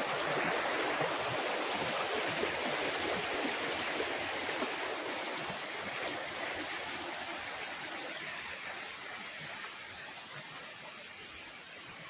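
Rocky forest stream rushing over and between boulders, a steady rush of water that grows gradually fainter toward the end.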